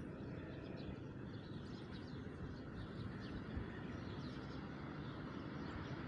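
Outdoor ambience: a steady low rumble with faint, short bird chirps scattered through it.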